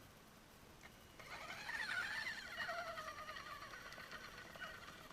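A small electric motor and gear drive of a radio-controlled Kyosho Blizzard tracked snow cat whining. It starts about a second in, wavers in pitch as the throttle changes and slowly drifts lower.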